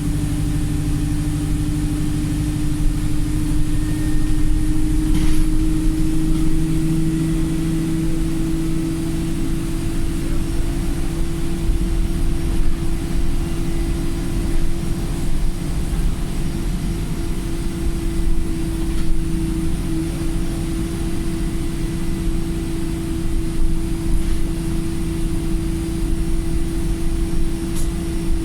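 Wright StreetLite single-deck bus driving along, heard from inside the saloon: a steady diesel engine drone and road rumble under a constant whine, with the bus in limp mode.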